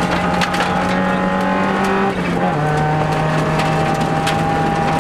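Subaru Impreza WRX STI rally car's turbocharged flat-four engine running hard, heard from inside the cabin; its note steps down once about halfway through, as with a gear change or lift. Sharp clicks of gravel hitting the car's underside run throughout.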